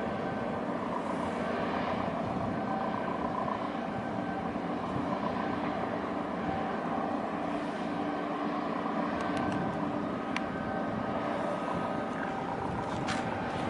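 Steady engine drone with a few faint, even hum tones, with a couple of sharp clicks near the end.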